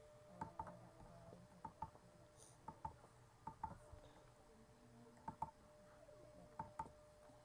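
Near silence with faint, sharp clicks, mostly in quick pairs, scattered through, over a faint steady hum.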